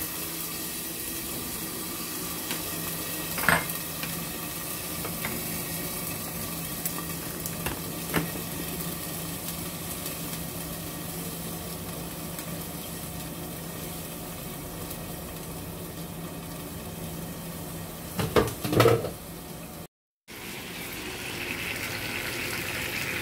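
Tomato and egg frying in a pan covered with an upturned pan, a steady sizzle with a low hum under it. There is a single knock a few seconds in and another later, then a clatter of pan handling a little before the end. After a short break the sizzle comes back brighter and louder.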